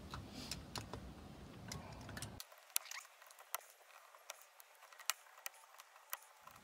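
Faint, irregular small clicks and scrapes of C-cell batteries being pushed into the metal spring clips of a battery holder.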